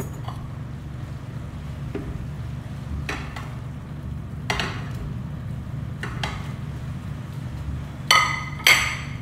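Soya chaap pieces being pushed off a plate with a spatula into simmering gravy in a kadai: a few soft knocks and scrapes, then two sharp ringing clinks against the pan near the end, over a steady low hum.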